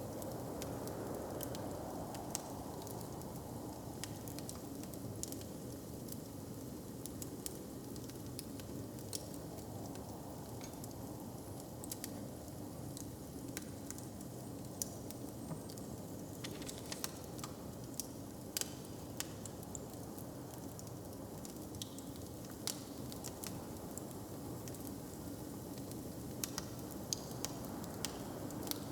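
Wood fire crackling: a steady hiss with sharp pops scattered throughout, coming more thickly a little past the middle and again near the end.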